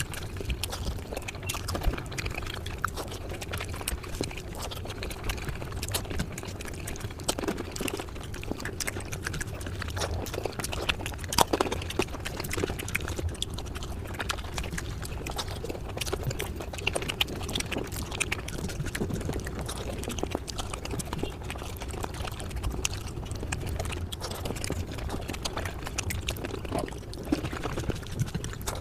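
Close-miked eating sounds sped up five times: chewing and mouth sounds packed into a dense, unbroken run of rapid clicks and wet smacks.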